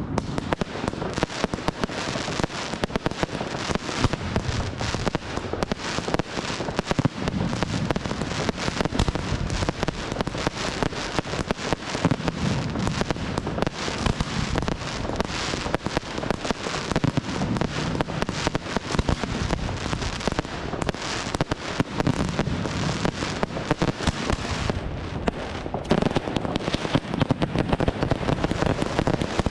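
Large aerial fireworks display: a dense, continuous barrage of rapid bangs and crackling, with a couple of brief lulls late on.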